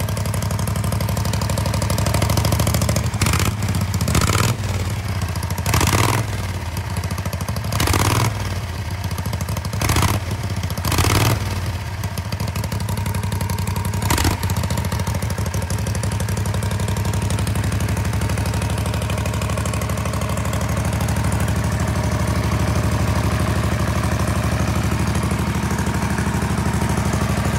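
Andover auxiliary power unit engine from a WWII B-29 bomber, running on a temporary fuel tank. It makes several brief louder surges in the first half, then runs on steadily.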